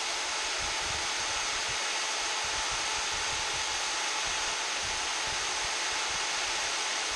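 A handheld rotary tool with a round burr running steadily at high speed, engraving an aluminium badge, a continuous even whine and hiss.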